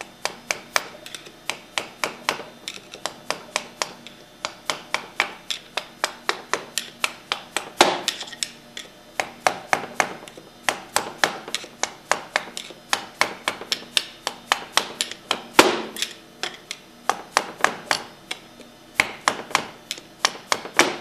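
Repeated sharp taps, about two to three a second with brief pauses, as the V-packings are tapped out of a Hypro pump manifold; two strikes, at about 8 and 16 seconds, are noticeably harder.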